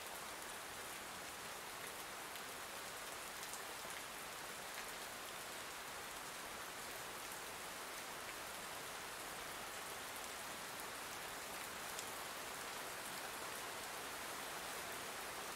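Steady light rain: a soft, even hiss with faint drops pattering.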